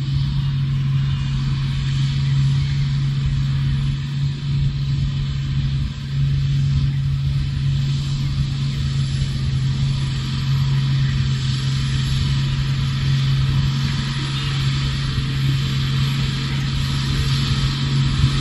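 Diesel engine of a Tata 3718 tipper truck running as the loaded 14-wheeler crawls over rough dirt ground, a steady low drone with no change in pitch.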